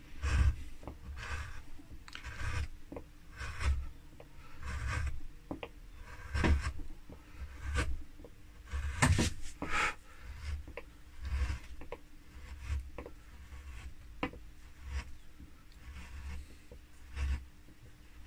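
Carving chisel cutting into linden wood: short scraping cuts about once a second, with a few sharp clicks, as small notches are carved along the edge of a leaf.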